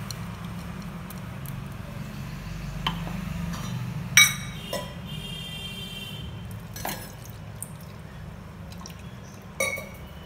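Stainless steel utensils clinking: a spoon knocking against a steel tumbler and the steel pan as ground coconut paste is scraped in. About five sharp clinks, the loudest about four seconds in, leaving a brief metallic ring, over a low steady hum.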